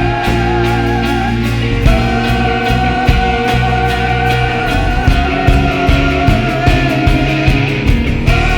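Live worship band playing a slow instrumental passage: drums and bass pulse under long held chords and sustained tones, with the chord changing about two seconds in.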